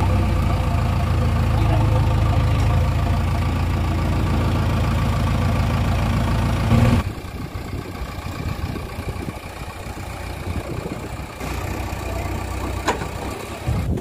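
JCB 3DX backhoe loader's diesel engine running steadily under load, heard from inside the cab while the front loader bucket is raised. About halfway through it drops suddenly to a quieter, rougher engine sound from outside the machine, with one sharp knock near the end.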